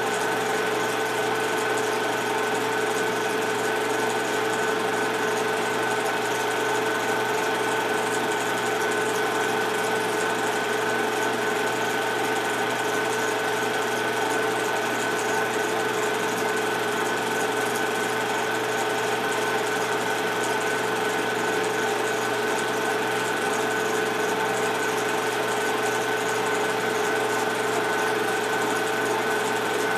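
Film projector running: a steady mechanical whir and clatter with a constant hum, no pauses or changes.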